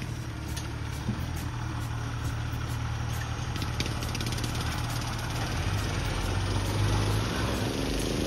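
Go-kart's small engine running steadily as the kart drives over gravel, growing gradually louder toward the end as it comes back toward the listener.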